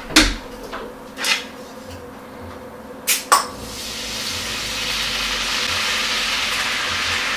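A few clinks and knocks of the bottle and pan, then pilsner beer poured from the bottle into a hot frying pan hisses and sizzles, swelling about four seconds in and holding steady.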